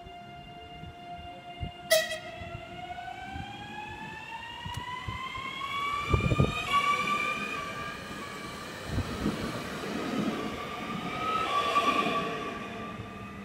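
České dráhy class 650 "Panter" electric multiple unit passing along the platform. Its electric traction drive gives a whine of several tones that rises steadily in pitch as the train gathers speed, after a sharp click about two seconds in. Low wheel thumps come over the rail joints as the cars go by.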